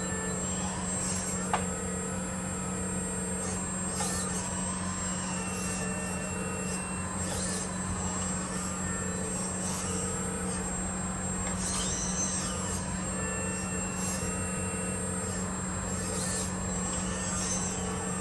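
Electric hydraulic pump of a 1/12-scale RC hydraulic excavator modelled on the CAT 336GC, running with a steady hum while the boom, arm and bucket are worked, with higher whines coming and going as the valves shift. A single sharp click about a second and a half in.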